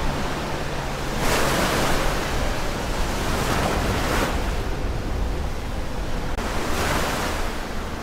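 Ocean surf: waves breaking and washing up the shore, swelling in a long surge about a second in and again near the end.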